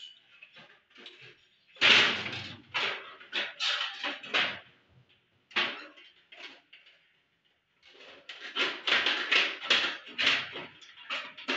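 An old CRT television's plastic and metal internals being pried and broken apart with a screwdriver: a run of irregular knocks, snaps and scrapes, pausing for about a second past the middle.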